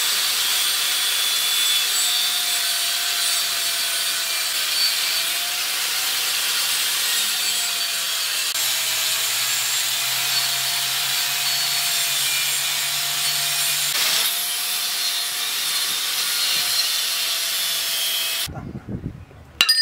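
Angle grinder with a cut-off disc slicing through a rusty flat steel bar: a steady, gritty hiss over the motor's whine, which wavers slightly as the disc bites. The cut stops abruptly near the end, followed by a short metallic clink.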